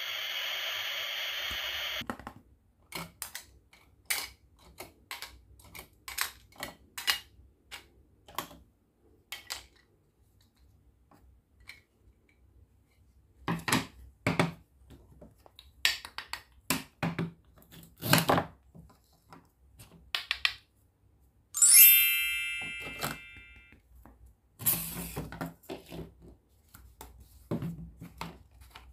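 A toy grill's steady steam-hiss sound effect, which cuts off about two seconds in. Then plastic toy food and utensils clack and knock as they are handled and set down, with one loud ringing clink about two-thirds of the way through that dies away over a second or two.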